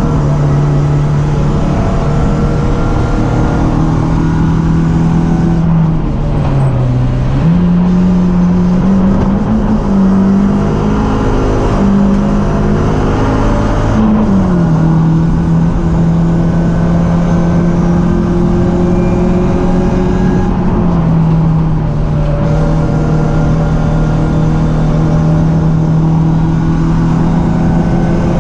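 BMW 318ti Cup race car's four-cylinder engine running hard at high revs. Its pitch dips briefly about six seconds in, climbs and wavers up and down in steps for several seconds, then holds steady for the rest.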